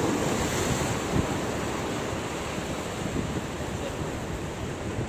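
Sea surf breaking and washing around in the shallows, a steady rushing of waves.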